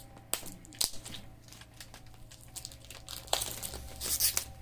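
Packaging crinkling and rustling as it is handled, with a couple of sharp taps in the first second and a louder stretch of crinkling in the last second or so.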